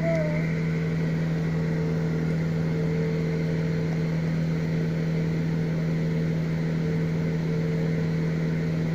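A steady mechanical hum with a constant low tone and an even hiss, unchanging throughout.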